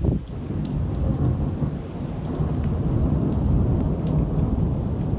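Thunder from a violent thunderstorm: it breaks suddenly at the start and rolls on as a long, low rumble.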